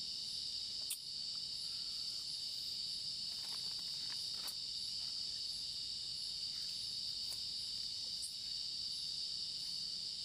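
Steady chorus of crickets and other night insects, a constant high-pitched buzz, with a few faint clicks scattered through it.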